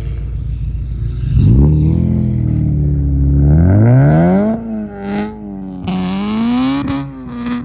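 Car engine revving hard: the revs climb steeply, then rise and fall several times, with bursts of hiss over the engine in the second half.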